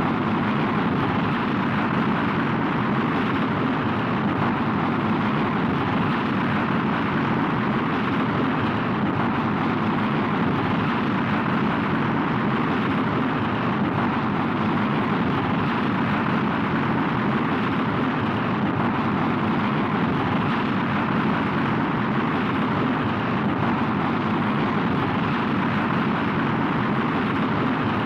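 Rocket in flight heard from inside the cabin: a steady, even rumble and rush of engine noise that does not change.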